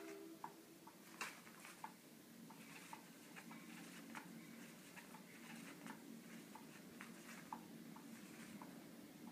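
Cat's Meow battery-powered cat toy running: a faint motor hum with light, irregular clicking from its mechanism, and two sharper clicks a little over a second in.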